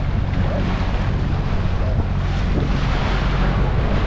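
Canal tour boat's motor running with a steady low hum, over the rush of the wake along the hull and wind buffeting the microphone.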